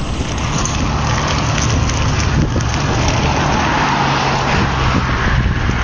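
Storm wind and rain rushing loudly and steadily over the microphone, with a steady low hum underneath.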